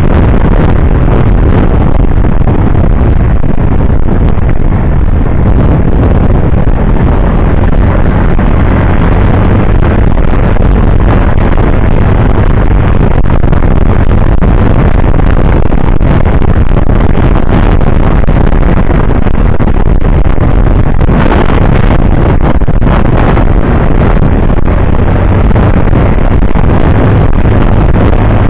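Loud, steady wind noise on the camera microphone while a motor scooter cruises at speed, with its engine running underneath.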